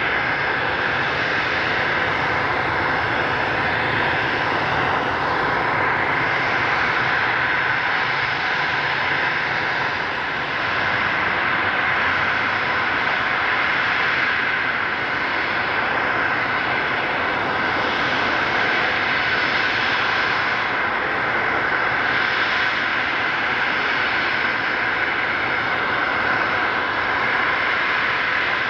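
Twin rear-mounted turbofan engines of a business jet running at low taxi power: a steady jet whine over an even hiss.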